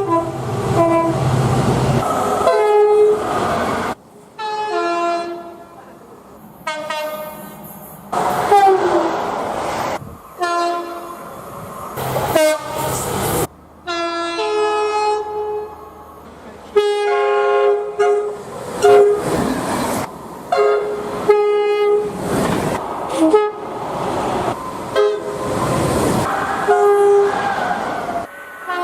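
Train horns sounded one after another, several different horns separated by abrupt cuts. Each horn plays a chord of steady notes, and a few fall in pitch partway through. Between and under the horn blasts there is the noise of trains running past.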